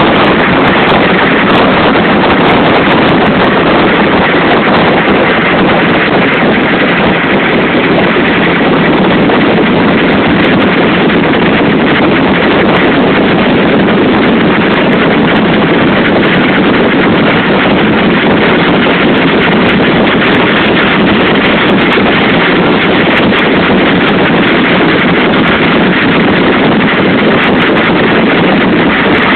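Steady, loud rushing noise of a moving motorboat, with wind buffeting the microphone.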